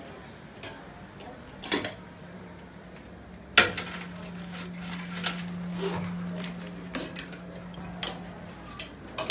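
Clothes hangers clicking and clinking against metal display rails and hooks as garments are hung up and sorted. About a dozen sharp knocks come at irregular moments, the loudest about three and a half seconds in, over a steady low hum.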